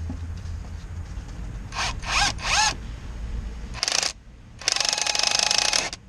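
Impact wrench: three quick trigger blips, each spinning up with a rising whine, then a short burst and a longer run of rapid hammering lasting about a second as it works a fastener.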